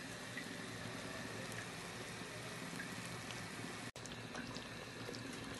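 Sugar syrup boiling hard in an aluminium pot: a steady fizzing bubble with small pops. The sound drops out for an instant about four seconds in.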